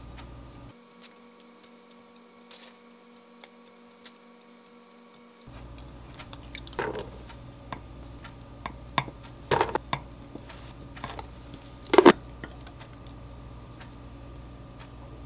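Light clicks and taps of hands placing blueberries and almonds on yogurt-spread toast, over quiet room tone. A few louder knocks come in the second half, the loudest near the end.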